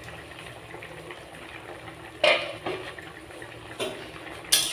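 A pot of taro-stem curry simmering with a steady low bubbling. It is broken by three sharp clinks and splashes, about two, four and four and a half seconds in, as pieces of fish go into the pot.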